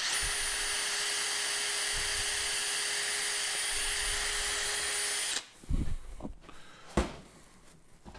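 Cordless drill spinning steadily at one speed with a constant whine for about five seconds, cleaning gasket residue off an engine block's surface, then stopping. A couple of knocks follow as the drill is set down on the steel bench.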